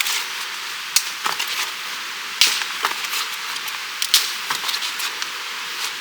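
Wood cracking and snapping in irregular sharp cracks, one or two a second, over a steady rushing hiss.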